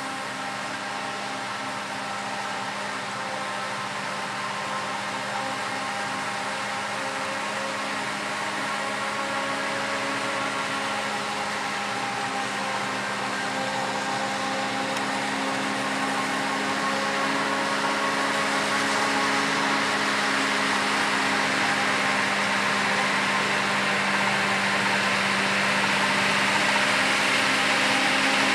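Self-propelled forage harvester chopping whole-crop cereal silage, with a tractor and trailer running alongside: a steady drone of engines and chopping machinery with several held tones, growing gradually louder as the machines come closer.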